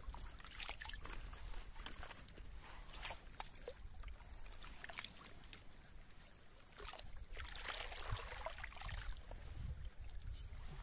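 Water splashing and sloshing as hands rinse vegetables in a metal pan in a shallow stream, with small knocks and drips throughout and a longer splashing swish about seven to nine seconds in.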